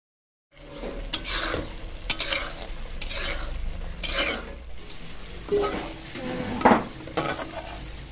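Metal spatula scraping and stirring egg halwa frying in ghee in a metal karahi, with a low sizzle underneath. The strokes come roughly once a second, starting about half a second in.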